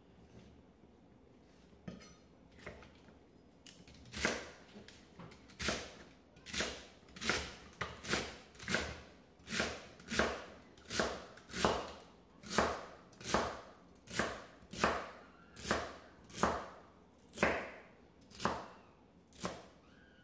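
Chef's knife chopping celery on a bamboo cutting board: a steady run of crisp crunching chops a little under a second apart, starting about four seconds in.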